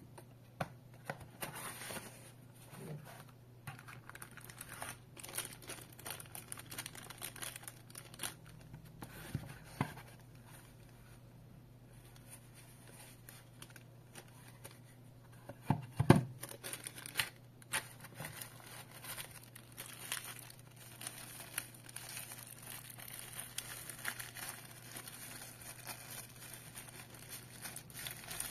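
Plastic bags and paper wrapping crinkling and rustling as the kit's parts are unpacked by hand, with small handling clicks throughout and a sharper knock about halfway through.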